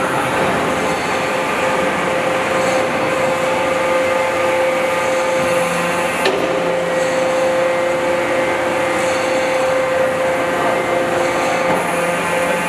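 Hydraulic static pile driver's hydraulic system running as its long and short walking boats are test-moved: a steady whine over dense machine noise, with a sharp click about six seconds in.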